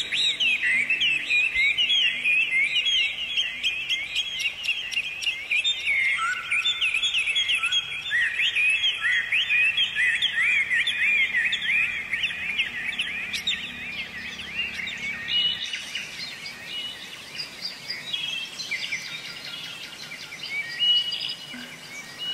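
Small birds chirping in quick repeated calls, dense at first and thinning out after about fifteen seconds, with faint background music underneath.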